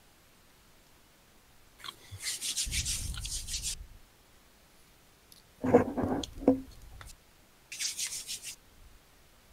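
Rubbing and scraping noise in two short spells, about two seconds in and again near the end. Between them, a little past halfway, comes a louder knock and rattle.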